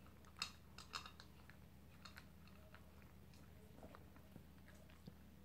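A poodle eating from a plastic bowl: faint chewing with short, sharp clicks, the two loudest within the first second and fainter ones scattered after.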